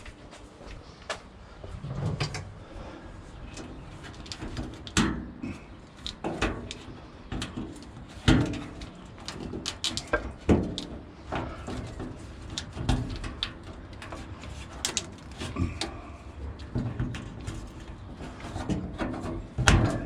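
Irregular clicks, knocks and clatter of hand tools being handled and worked, with several sharper knocks among them.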